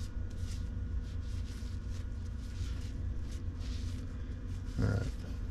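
Shop towel rubbing over a steel gear from a Bafang M620 mid-drive motor, wiping off old grease in faint, uneven rustling strokes over a steady low hum. A short low sound near the end.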